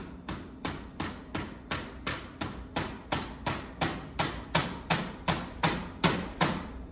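Rapid, even blows driving a handlebar grip onto a bicycle handlebar that has been sprayed with alcohol, about three knocks a second, getting louder toward the end.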